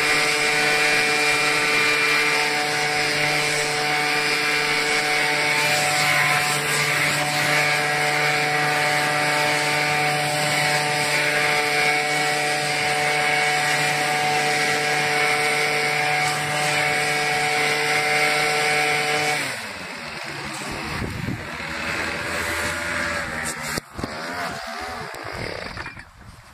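Hitachi RB24EAP 23.9cc two-stroke handheld gas leaf blower running steadily at high speed, its engine tone over a rush of blown air. About two-thirds of the way through, the engine slows, falling in pitch and getting quieter to a lower, unsteady running.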